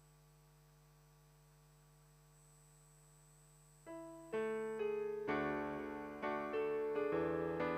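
A keyboard begins playing the introduction to a hymn about four seconds in, with notes struck in a steady rhythm that quickly fill out into chords. Before it enters there is only a faint steady hum.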